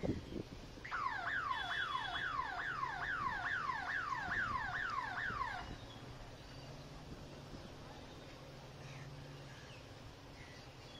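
A siren-like electronic warble: a quick falling sweep repeated about three times a second for some five seconds, then it stops, leaving a faint low hum.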